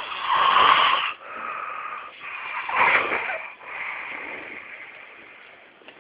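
A person snoring: two loud snores about two and a half seconds apart, each followed by a softer, longer breath, with the last one fading away.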